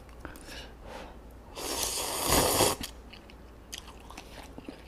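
Instant cup ramyeon noodles being slurped close to the microphone: one long, airy slurp lasting about a second, near the middle. Soft chewing clicks follow.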